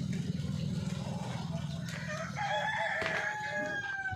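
A rooster crowing once, the call starting a little over halfway in and ending with a long held note that drops slightly in pitch. A steady low hum runs underneath.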